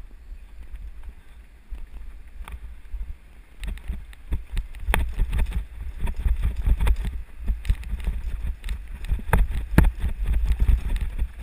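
Mountain bike riding fast down a rough dirt trail: wind rumbling on the microphone and frequent clattering knocks as the bike rattles over the bumps, getting busier and louder about four seconds in.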